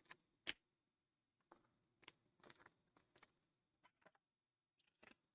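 Near silence broken by faint, scattered clicks and light rustles of trading cards being handled and slipped into rigid plastic top loaders.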